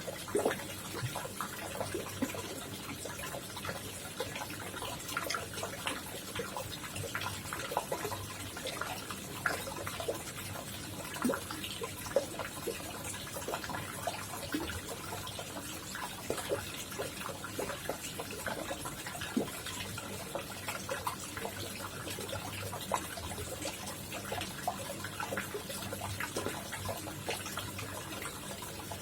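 Water trickling and splashing in a koi pond: a steady running-water hiss with many small, irregular drips and plops.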